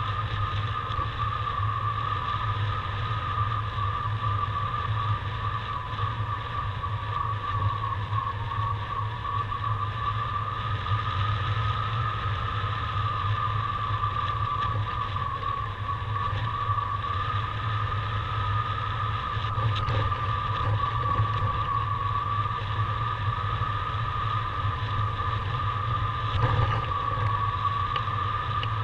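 Steady rush of airflow over a camera rigged in a paraglider's lines in flight, with a constant whistling tone that wavers slightly in pitch.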